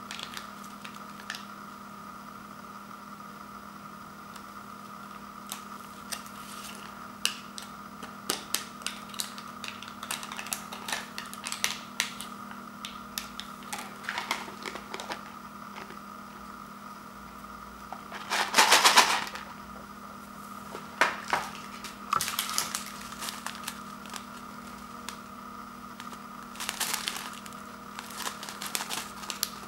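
Foil and plastic seasoning packets crinkling and tapping as they are squeezed and shaken out over an instant noodle bowl: scattered sharp clicks and rustles, with louder crinkling bursts about two-thirds of the way through and again near the end, over a steady background hum.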